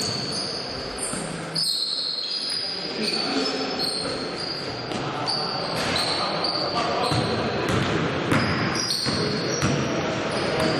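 Basketball game in a sports hall: a ball bouncing on the court with repeated short knocks, high sneaker squeaks on the floor, and players' voices.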